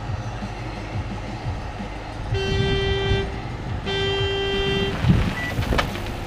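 A horn sounding two blasts of about a second each, both at the same steady pitch, over a background murmur, followed by a few sharp knocks.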